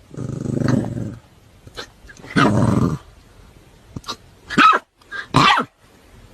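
Puppy growling twice, low and rough, then giving two short, sharp barks about a second apart.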